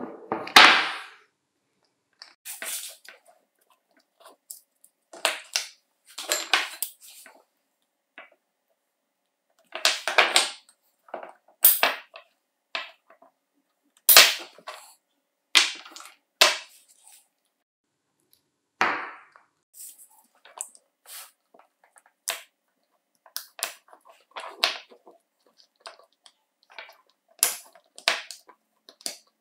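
Scattered clicks, taps and rustles of lithium-ion battery cells, wires and plastic cell-holder parts being handled on a wooden workbench, with a few sharp snips from metal shears about a third of the way in.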